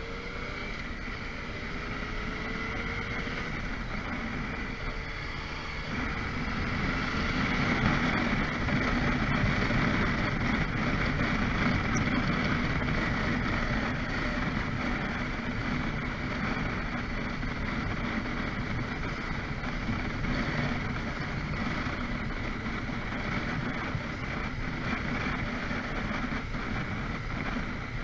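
Onboard sound of a motorcycle being ridden: engine and wind rush, getting louder as the bike speeds up a few seconds in, then holding steady at cruising speed.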